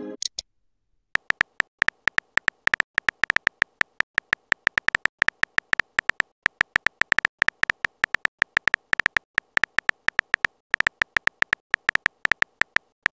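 Simulated phone-keyboard typing clicks from a texting app, a rapid, uneven run of short clicks, one per keystroke, starting about a second in as a message is typed out.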